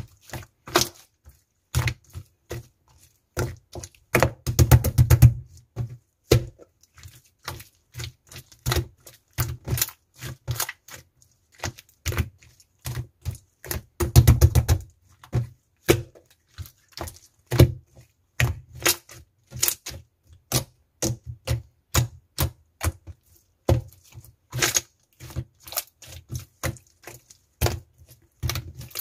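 Clear slime being pressed, poked and squished by hand, giving sharp sticky clicks and pops at an irregular pace. There are two runs of fast, close-set clicking, about five seconds in and again about fourteen seconds in.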